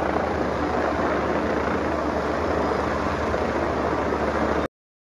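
Helicopter flying overhead: steady rotor and engine noise that cuts off abruptly near the end.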